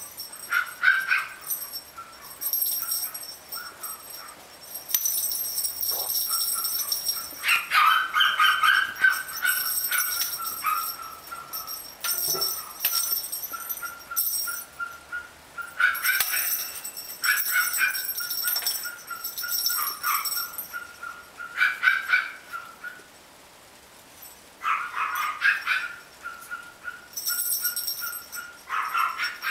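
Three-month-old Pomeranian puppies yipping and barking in many short bursts, again and again.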